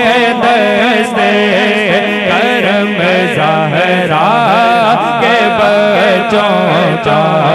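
A man singing a naat through a microphone, drawing out a long ornamented line whose pitch swoops and wavers, over a steady low drone.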